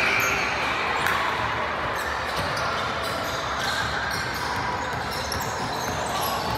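Basketball bounces on a hardwood gym floor as the ball is dribbled, each bounce echoing in a large hall, over a steady background of gym noise.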